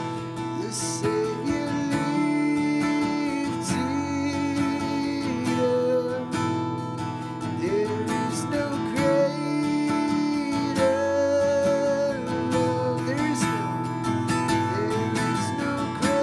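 Acoustic guitar music, strummed and plucked chords under a slow melody of held notes that slide between pitches.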